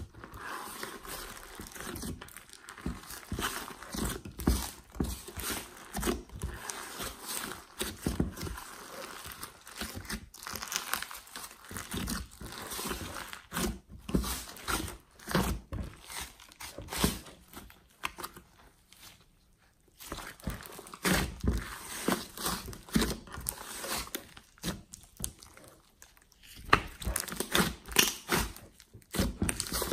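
Soft glossy slime mixed with clay being squeezed, stretched and folded by hand in a glass dish: sticky squishing with many small irregular crackles and pops, with a brief lull about two-thirds of the way in.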